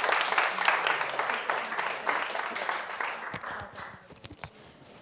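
Audience applauding, the clapping dying away about three to four seconds in, leaving a few scattered claps.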